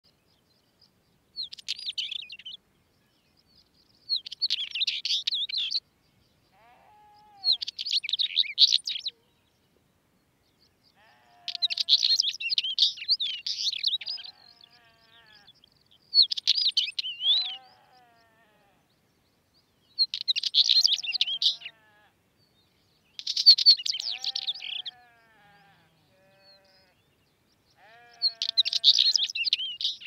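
Northern wheatear singing: about eight short, fast, chattering song phrases, each one to three seconds long, with pauses of a second or more between them.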